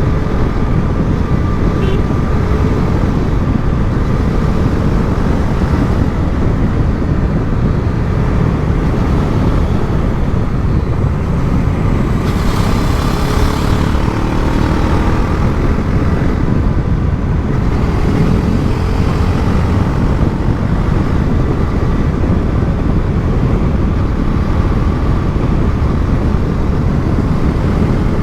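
Bajaj Pulsar NS400Z's single-cylinder engine running through its stock exhaust while the bike is ridden, a steady, loud drone mixed with road and wind noise. A short rush of hissing noise comes through near the middle.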